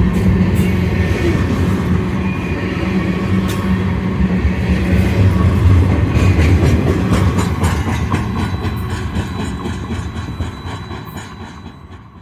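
Diesel freight train passing: the low drone of the locomotive engines with wheels clicking over rail joints. It is loudest about halfway through, then fades as regular wheel clicks go by, and cuts off at the end.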